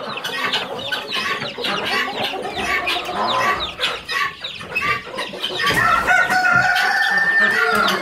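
Chickens in a poultry house: many chicks peeping in quick, overlapping chirps while adult chickens cluck. A rooster crows in one long held call from a little before six seconds in until near the end.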